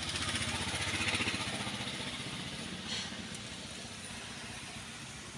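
A motor vehicle's engine running with a fast, even pulse. It grows louder about a second in, then slowly fades. There is a short click about three seconds in.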